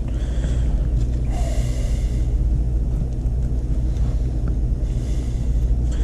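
A steady low hum runs throughout, with soft hissing noises about a second and a half in and again near the end.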